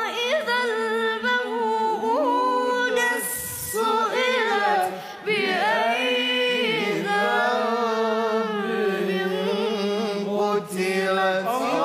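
A boy reciting the Quran unaccompanied in the melodic tilawat style, holding long ornamented notes that waver and glide in pitch, with brief breaks for breath.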